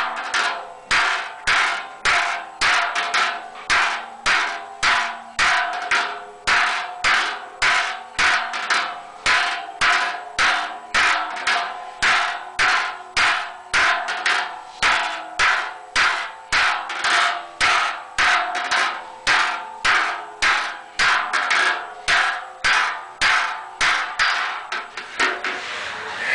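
A hand hammer striking the wall of a large sheet-metal cauldron as it is hand-forged, a steady run of blows about two a second, each ringing briefly in the vessel. The hammering stops shortly before the end.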